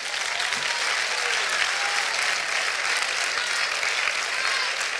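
Church congregation applauding steadily, with a few voices calling out over the clapping.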